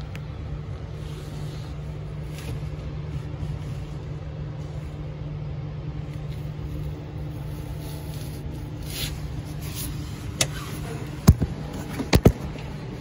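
1986 Jeep CJ7 engine running steadily, heard from inside the cab as a low even hum. A few sharp knocks come near the end.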